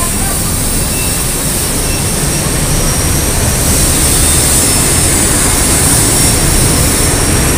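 Dense road traffic of cars, motorbikes and buses passing close by: a steady, even wash of engine and tyre noise.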